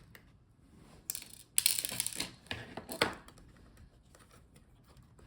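A few light clicks and rustles of small laptop parts and tools being handled, in a short cluster about a second or two in and once more near the middle.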